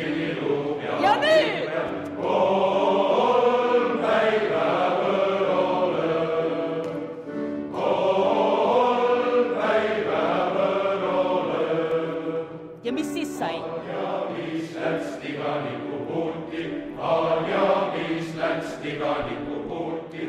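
Amateur men's choir singing a cappella in rehearsal, several voices in parts, breaking off between phrases near the middle. A high rising vocal glide about a second in.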